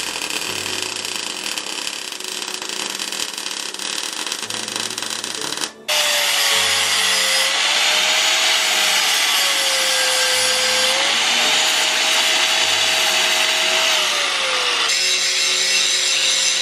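Welding arc crackling steadily on steel for about six seconds, then an angle grinder cutting steel, its motor whine dipping and rising as the disc loads; near the end the sound changes abruptly to a steadier grinder pass on steel plate.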